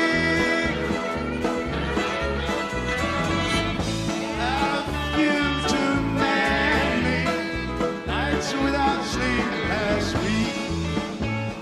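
Live rock band playing a country-flavoured song: drums, bass, guitar and a fiddle, with a male voice singing.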